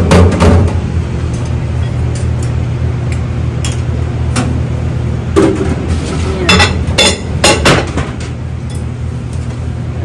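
Plastic bowls and dishware knocking and clinking against a stainless steel sink as dishes are scraped and handled, in irregular clusters, the loudest right at the start and again about five to eight seconds in, over a steady low hum of kitchen machinery.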